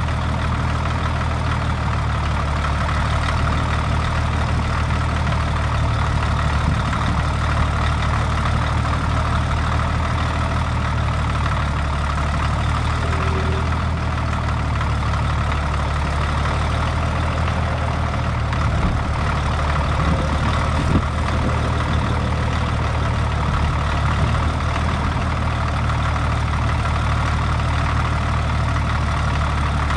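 Heavy engine of an old crawler tractor running steadily under a chain pull, with one sharp knock about 21 seconds in.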